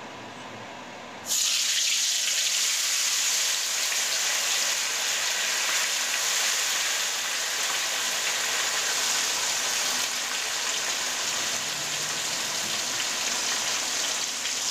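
Marinated hamour fish pieces going into hot ghee in a wok: about a second in a sudden, loud, steady frying sizzle starts and carries on, easing slightly later on.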